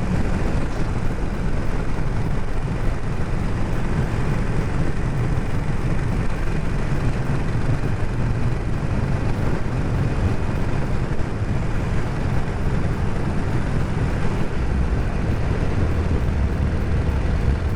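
Harley-Davidson Sportster 48's air-cooled V-twin running under way, heard through steady wind rush on a rider-worn microphone. The low engine note drops lower a few seconds before the end.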